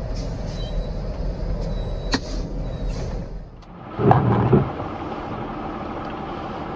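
Vehicle running noise heard from dashcams: a steady low truck rumble with a sharp knock about two seconds in, then, after a cut, two loud thumps about half a second apart followed by steady car road noise.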